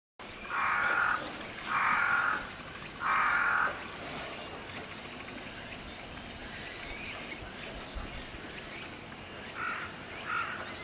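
An animal calling three times loudly, each call a harsh note about half a second long and a bit over a second apart. Near the end come three shorter, fainter calls.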